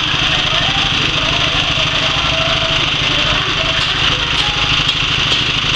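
Small single-cylinder engine running steadily, driving a wet coffee pulper, with an even rapid low pulse under a broad mechanical hiss.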